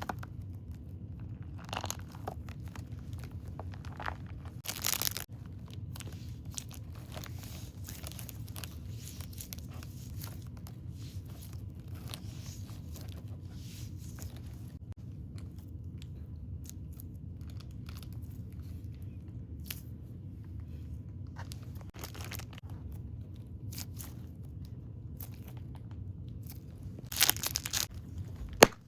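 Fidget toys and their packaging being handled: scattered crinkling, crunching and tearing over a steady low hum, with louder rustling bursts about five seconds in and near the end.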